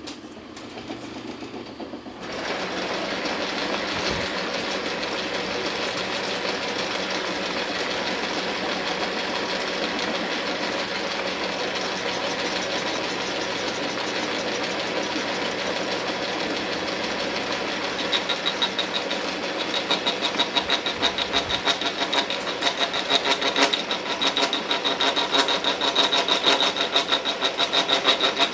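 Milling machine running. About 2 s in it settles into a steady run, and from about 18 s in it turns into a louder, fast pulsing with a high ringing tone as the cutter takes a deeper pass into the metal bar.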